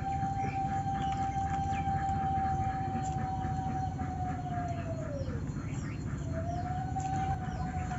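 A long, steady siren-like wail holds one pitch, then sags downward about five seconds in; a second wail rises back up a second later and holds. Quick, high bird chirps repeat behind it.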